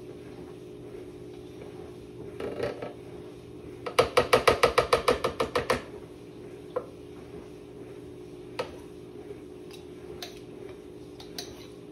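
A quick run of about a dozen sharp, ratchet-like clicks lasting nearly two seconds, about four seconds in. A few single clicks and taps come before and after it.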